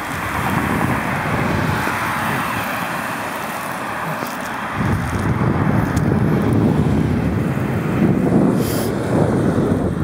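Wind rushing over the microphone of a moving bicycle, with a steady hiss of road noise. A heavier low buffeting sets in about halfway through.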